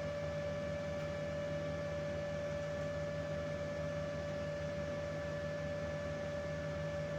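CNC router's stepper motors driving the axes at constant speed during homing, a steady high whine over a low hum.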